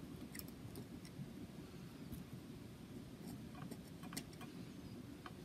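Soldering work on a flight controller's power joint: a faint steady low hum with a handful of small, sharp ticks and clicks scattered through, as the iron tip and solder wire work the joint.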